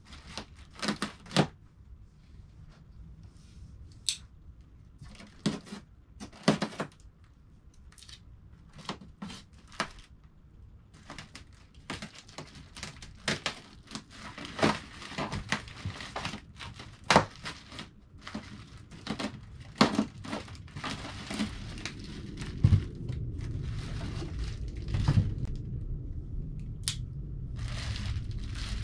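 Plastic bags of small parts crinkling and rustling as they are handled and pulled out of moulded styrofoam packing, with many scattered sharp crackles and light knocks. A low rumble joins in about two-thirds of the way through.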